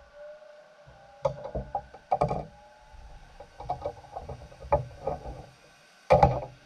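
Irregular knocks and clunks of objects being handled, in three groups, the last and shortest one the loudest.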